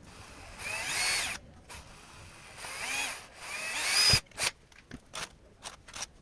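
Small electric drill run in three short bursts, its whine rising and falling in pitch each time, drilling a small hole for a mounting screw; a few sharp clicks follow in the second half.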